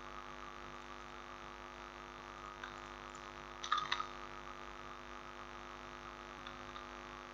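Faint, steady mains hum with a short burst of computer mouse clicks a little past halfway.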